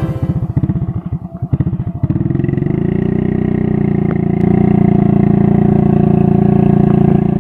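Motorcycle engine carrying a rack loaded with oil palm fruit bunches, chugging in separate pulses at low revs, then running up to a steady, higher, louder note about two seconds in as it pulls away under load.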